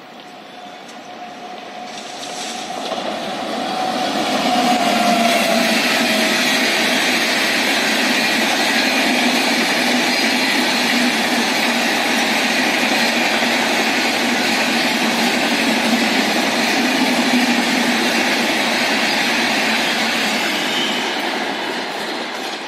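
Indian Railways express passenger train passing at speed. The sound swells as it approaches, with a faint tone dipping slightly in pitch as the front goes by. Then comes a long, steady loud rush of the coaches' wheels on the rails, fading near the end as the train recedes.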